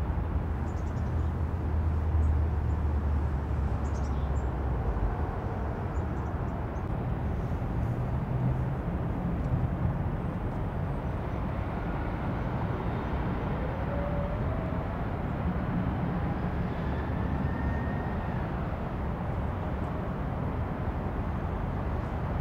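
Steady outdoor rumble of vehicle noise. A deep hum stops about five seconds in, and faint rising whines come through in the middle.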